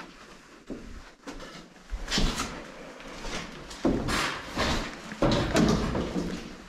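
Irregular scuffing and knocking of people moving through a doorway: footsteps and the handling of a door. The sounds get busier from about two seconds in.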